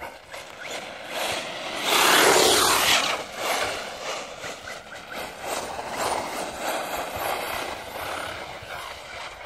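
HSP Brontosaurus 1/10-scale brushless RC truck driving across an icy, snow-dusted track, its tyres scrabbling and spinning on the ice. The noise is loudest about two seconds in as the truck passes close, then falls back to a lower steady level.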